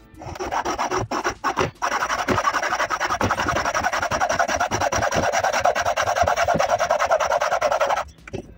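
Fine-toothed hand saw cutting across a wooden board in rapid short strokes, with a brief break about a second in. The sawing stops near the end as the cut goes through.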